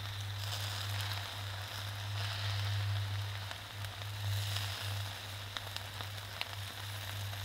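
Steak, burger patties and hot dogs sizzling on a small charcoal grill, a steady hiss with scattered fat pops and crackles, over a steady low hum.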